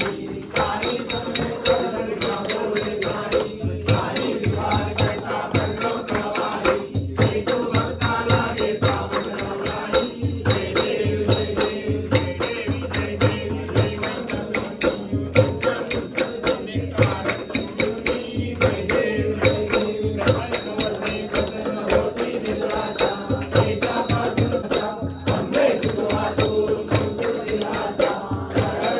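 Hindu devotional aarti song: singing over a steady drum-like beat, with bells or jingles ringing in rhythm.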